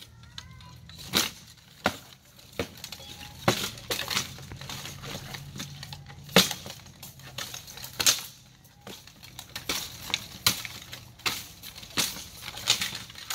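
Blunted steel swords striking steel plate armour and a shield in full-contact armoured combat, with armour clanking in between. It comes as about a dozen sharp, irregular strikes.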